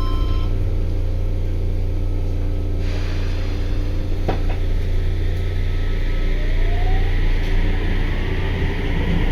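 Inside a Sendai Subway 1000N-series train: a steady low rumble with the last tone of a chime cutting off at the very start and a single knock about four seconds in. From about seven seconds the IGBT-VVVF inverter's whine rises in pitch as the train pulls away.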